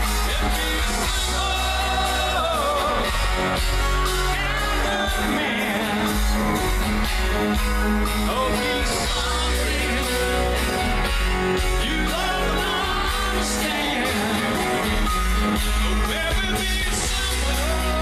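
A live rock band playing, with a male lead singer over guitars and a steady deep bass, heard loud through the concert sound system.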